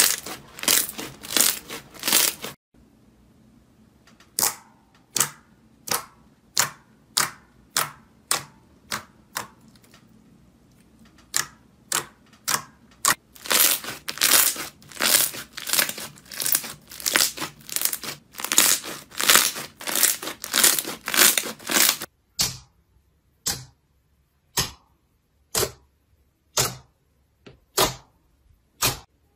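Slime being squeezed, pressed and poked by hand, giving a run of sharp wet clicks and pops about one to two a second. In the last third the pops come singly with silence between them.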